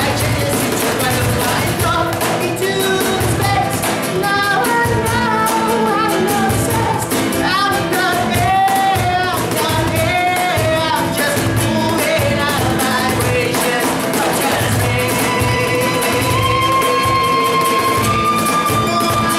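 Acoustic alternative rock: a man singing over a strummed acoustic guitar and a cajón beat, with a violin coming in on long held notes near the end.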